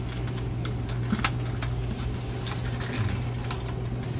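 Monofilament fishing line rigged with hooks being fed by hand into a plastic bucket: light rustling and scattered small clicks, over a steady low hum.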